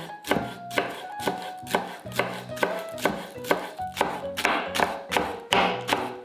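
A santoku knife slicing green onion on a wooden cutting board, each stroke a sharp tap on the board, quick and regular at about four a second. Light background music plays under it.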